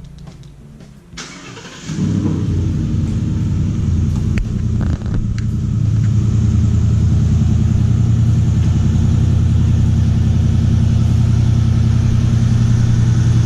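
Ford F-150's 5.0 L Coyote V8 engine started: it catches about two seconds in, builds for a few seconds, then runs steadily at idle until it cuts off suddenly.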